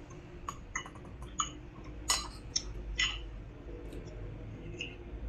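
Metal spoon and fork clinking and scraping against a ceramic bowl and plate while eating: a handful of scattered light clicks, the loudest about two seconds in.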